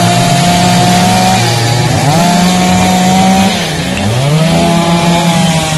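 Petrol chainsaw running at high revs. Its pitch sags and climbs back twice, about one and a half seconds in and again around four seconds.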